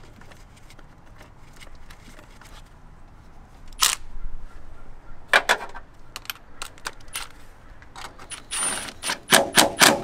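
Cordless power driver with a socket run in short bursts to drive in an 8 mm bolt, with sharp clicks and knocks as the socket and tool are handled. A short whine is followed by a fast run of clicks near the end.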